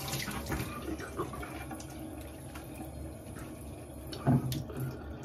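Tap water running into a sink and splashing as a face is rinsed with cold water by hand, with a brief louder sound about four seconds in.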